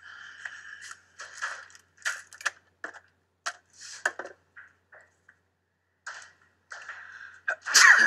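A man sneezes once, loudly, near the end, the sound falling in pitch. Before it, scattered small clicks and rustles of movement.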